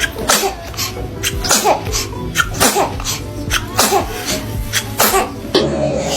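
A baby sneezing again and again: a quick run of about a dozen short sneezes.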